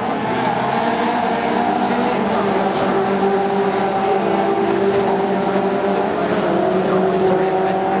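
Caterham Seven race cars' 2.0-litre four-cylinder engines running on track, several engine notes overlapping with slowly shifting pitch, steady and loud throughout.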